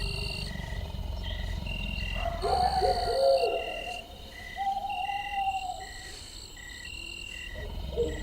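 Creepy night-forest ambience sound effect: steady high chirping pulses repeating about twice a second over a low rumble, with drawn-out hooting calls a few seconds in and again near the end. The rumble fades out partway through.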